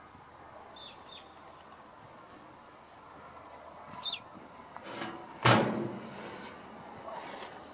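Faint outdoor background with a few short, high bird chirps that drop in pitch, about a second in and again near four seconds. A sharp knock about five and a half seconds in is the loudest sound.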